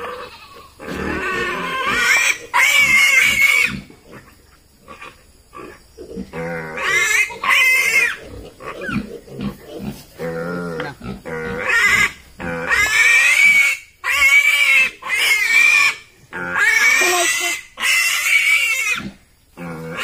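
Piglet squealing loudly in a series of long, high-pitched screams with short breaks between them: distress cries while it is held down and castrated.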